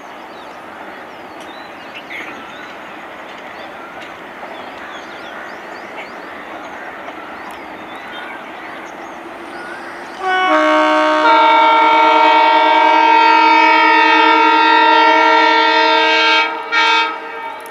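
WDP4D (EMD GT46PAC) diesel locomotive's horn, a chord of several tones: one long loud blast of about six seconds starting about ten seconds in, then a short blast. Before it, the rumble of the train running through without stopping slowly grows louder.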